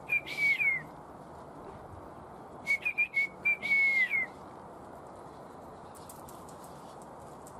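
A person whistling to call dogs in: two whistled calls, each a few quick short notes followed by a longer held note that drops in pitch at the end.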